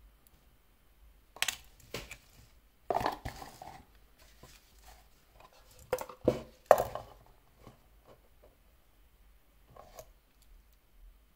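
Handling noise of a cardboard watch box and its paper packaging: a scatter of knocks, taps and rustles, loudest around six to seven seconds in, with a last light knock near the end.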